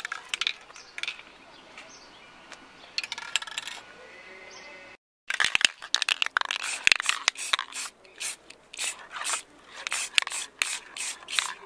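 Rattle of the mixing ball in an aerosol spray-paint can being shaken: quick, irregular clicks, louder in the second half.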